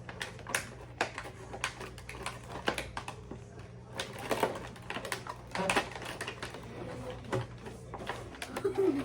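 Cardboard toy box and its packaging being handled and opened by hand: irregular clicks, taps and crinkling, busiest about four to six seconds in.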